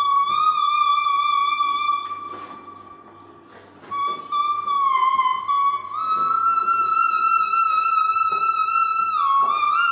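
Leaf whistle (a leaf blown between the lips) playing a slow Baul melody in a single high, clear tone of long held notes. About two seconds in, the tone fades away for a moment, then returns in short broken notes. It steps up to a long held note and slides down again near the end.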